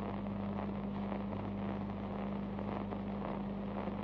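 Steady low hum with an even hiss: the background noise of an old film soundtrack, with no other sound over it.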